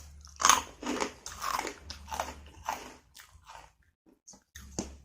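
A person chewing crunchy fried food close to the microphone, a crisp crunch about every half second, the loudest about half a second in, then a few lighter crunches near the end.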